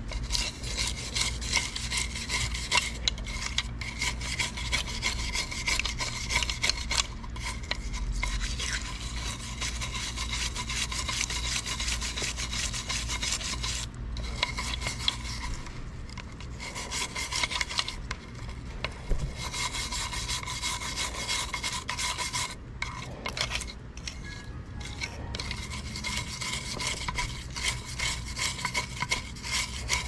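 Rapid, continuous scraping and rubbing of a tool against old paint on antique mortise lock hardware as the paint layers are stripped off, with a couple of short pauses.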